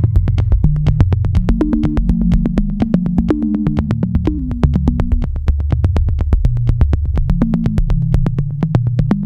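Background electronic music: a synthesizer bass line under a fast, even beat of sharp clicks.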